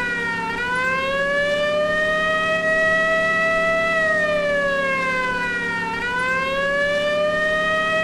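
Old police car siren wailing, its pitch sliding slowly up, holding, then sliding back down, about once every five to six seconds, with two low points, just after the start and about six seconds in. A steady low hum runs beneath it.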